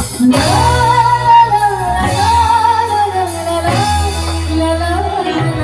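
A woman singing a drawn-out, wavering melody through a microphone over a live band; the band and bass come in just after the start.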